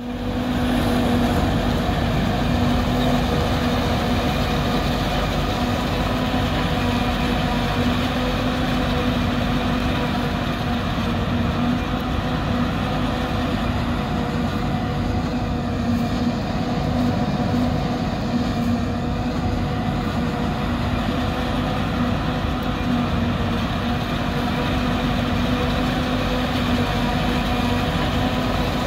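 New Holland 2100 self-propelled forage harvester running steadily under load while chopping corn for silage: a continuous heavy machinery drone with a constant hum.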